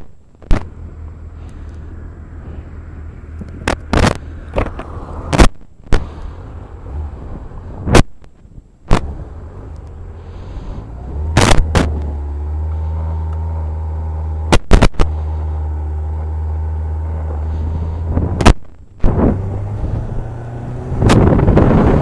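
Motorcycle engine running at a steady speed under strong wind, with repeated sharp pops as gusts buffet the microphone. A loud rush of wind noise comes in near the end.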